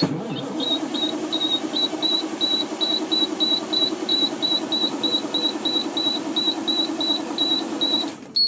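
International 9800 truck's diesel engine being cranked by its starter, turning over steadily for about eight seconds without catching, then stopping. The mechanic takes the failure to start for air in the fuel system that needs bleeding. Throughout, a cab warning buzzer beeps about three times a second.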